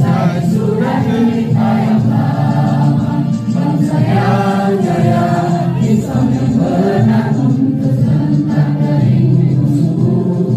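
A group of people singing a song together in chorus, with a steady low accompaniment underneath.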